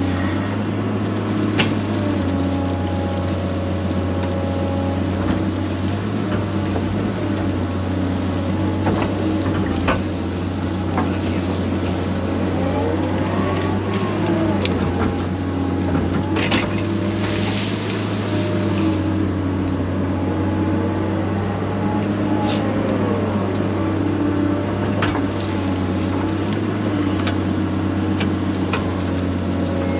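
Excavator's diesel engine running steadily under load. A hydraulic whine rises and falls a few times as the arm works, with scattered sharp knocks and cracks.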